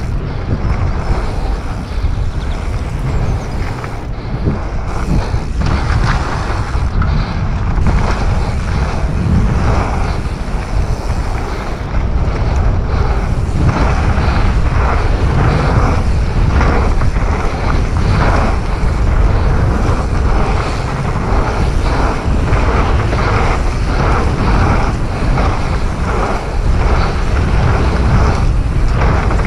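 Wind rushing over the microphone at riding speed, with the rattle and knocking of a Commencal Supreme DH29 downhill mountain bike rolling fast over a dirt trail. The clatter from bumps grows busier from about six seconds in.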